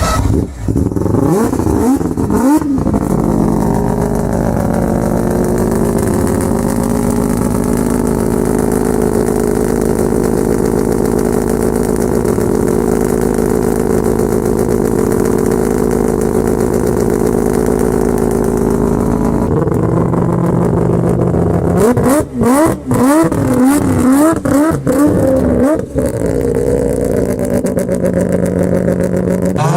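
Rotary car engine revving. A few quick revs at the start settle into a steady, even running note for about fifteen seconds. Later comes a string of sharp throttle blips, the pitch jumping up and dropping back several times, before it steadies again.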